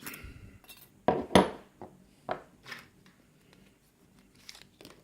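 Small metal clicks and scrapes as a shim is worked out of a KIK lock cylinder: a handful of short, separate sounds, the loudest a pair about a second in.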